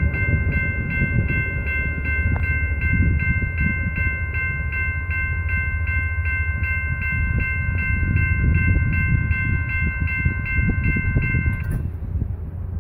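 Railway crossing warning bell ringing at about three strikes a second, over a steady low rumble. The bell cuts off abruptly near the end as the crossing's warning ends.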